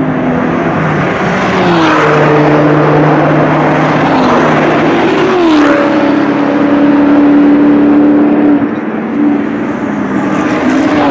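Sports and racing cars at speed passing a circuit pit wall one after another, high-revving engines each dropping in pitch as they go by, about four passes in a row.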